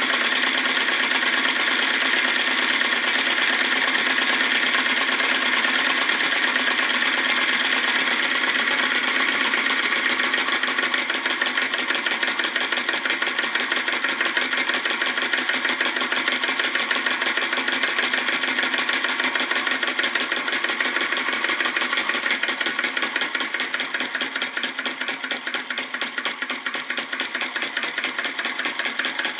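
Retrol VE-01 crossbeam vacuum engine (flame licker) running with a steady mechanical clatter. From about ten seconds in it slows as its flame is turned down, until each stroke is heard as a separate beat.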